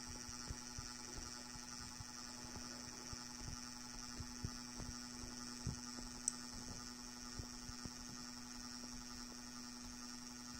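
Roco 'Hippel' model with a Train-O-Matic powerpack crawling slowly, its small motor giving a steady hum with a faint high whine. Irregular soft clicks and ticks run through it, with one sharper click about six seconds in.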